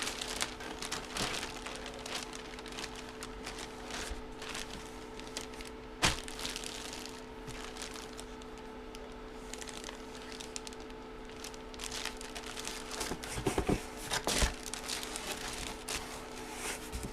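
Card packaging and plastic being handled at close range: crinkling and rustling with scattered clicks, one sharp click about six seconds in and a cluster of knocks around thirteen to fourteen seconds, over a steady low electrical hum.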